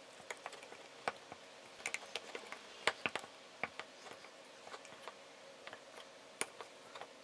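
Wooden spoon stirring a thick flour-and-water sourdough starter in a jar, mixing in a fresh feed of flour and water: faint, irregular clicks and knocks of the spoon against the jar.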